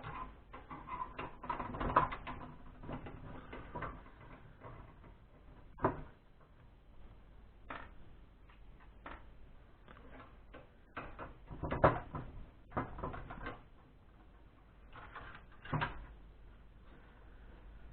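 Irregular clicks, knocks and rattles of plastic and metal parts being handled while a desktop PC is taken apart to get its small internal speaker out, with louder knocks about 2, 6, 12 and 16 seconds in.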